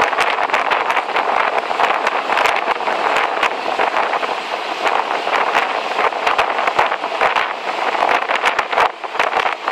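Wind buffeting the microphone over the steady rush of a moving boat on the water, with many quick irregular gusts and splashes.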